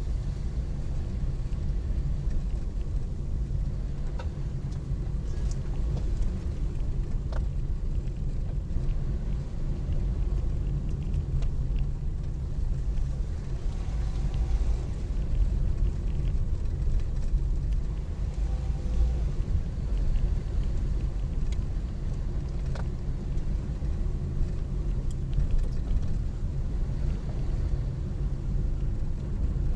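A car driving, heard as a steady low rumble of engine and road noise, with a few faint clicks.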